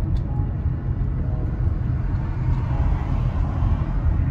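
Steady low engine and road rumble inside a moving car's cabin.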